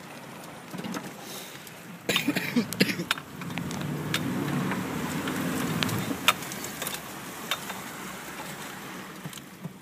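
Chevy Z71 pickup wading through deep pond water, heard from inside the cab: water rushing and sloshing against the truck with the engine running underneath, swelling louder in the middle, with scattered small knocks and rattles.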